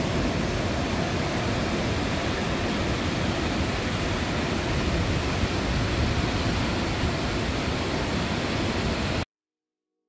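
The Krimml Waterfalls thundering down and the white-water river below them rushing over rocks: a loud, steady, unbroken rush of water that stops abruptly about nine seconds in.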